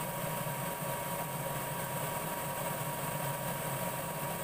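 Diesel-fired forced-air space heater running steadily: a continuous fan-and-burner hum with a thin, constant high tone over it.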